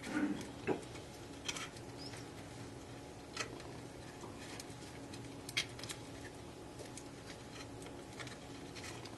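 Scattered light clicks and ticks from hands handling fiber tails and the plastic splice tray of a fiber-optic cassette, the loudest right at the start and another just under a second in, over a low steady hum.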